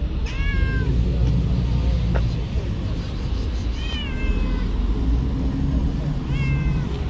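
Long-haired tabby cat meowing three times: once right at the start, once about four seconds in and once near the end. Each meow rises a little and then falls in pitch, over a steady low background rumble.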